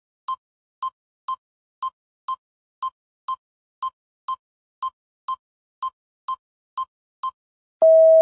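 Countdown timer sound effect: clock-like ticks, two a second, then near the end a loud steady beep begins as the time runs out.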